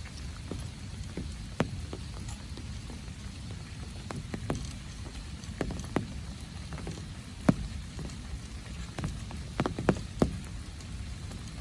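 Rain falling, a steady low rush with sharp, irregular drops striking close by, several of them loud.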